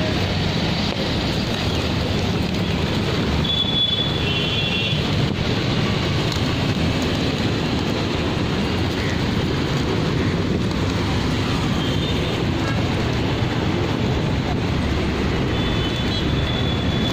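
Steady roadside traffic rumble, with a couple of brief high beeps, once about four seconds in and again near the end.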